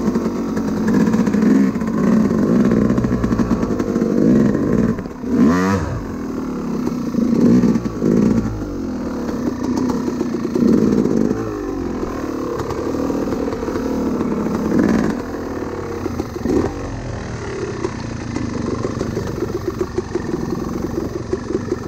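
Enduro dirt bike engine riding a trail, the revs rising and falling over and over as the throttle is worked, with a sharp rev up and back down about five seconds in. It settles to a lower, steadier run in the second half.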